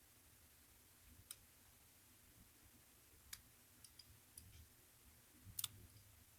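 Faint, sparse metallic clicks of a flat lock pick working the wafers of a Fort Lock wafer padlock under tension. There are a few scattered clicks, with the loudest near the end.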